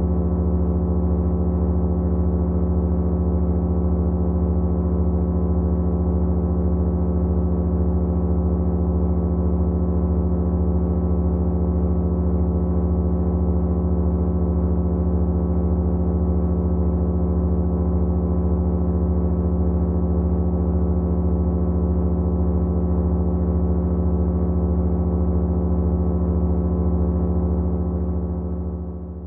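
Several motors running together in a steady, even hum with a deep low drone, fading out near the end.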